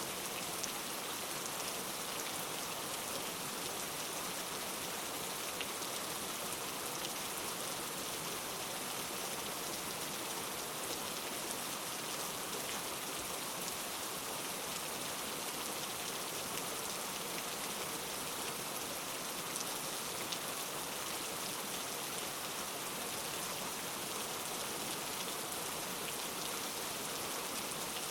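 Steady rain falling, an even hiss of drops with faint scattered patters and no change in strength.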